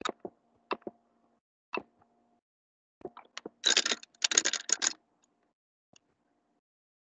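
Clicking at a computer: a few separate sharp clicks, then a rapid clatter of clicks lasting about a second and a half from around three and a half seconds in.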